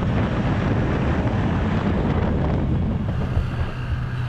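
Wind rushing over the microphone on top of a running ATV engine at trail speed. Near the end it gives way to the steadier low hum of a side-by-side's engine moving slowly.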